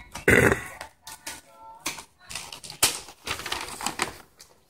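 Shiny gift wrapping paper being torn open and crumpled by hand, in irregular crackling bursts.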